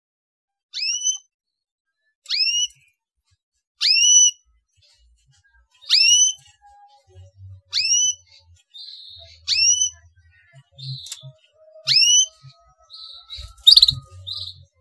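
Short rising 'cuit' whistle calls repeated about every second and a half, the chirp played to stimulate young canaries to start singing. In the second half, softer chirps and light knocks come in between the calls.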